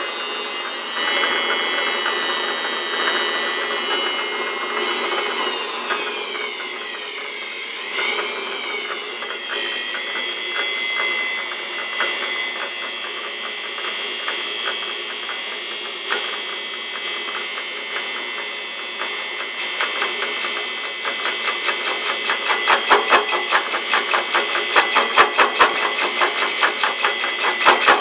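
Homemade metal lathe running with the sharpened cutter taking a cut, a continuous grinding noise with high whining, squealing tones that slide down and back up early on. Over the last several seconds a fast, even pulsing builds and grows louder.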